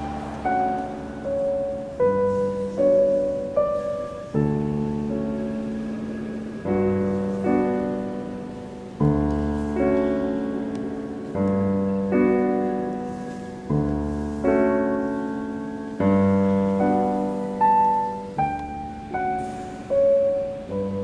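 Background music: slow, gentle solo piano, with notes and chords struck about once a second and left to ring out.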